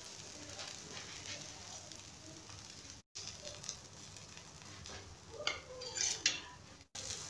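Faint steady kitchen hiss, with a few brief metal scrapes and clicks of a slotted spatula and fork against a plate and flatbread about two thirds of the way in. The sound drops out briefly twice.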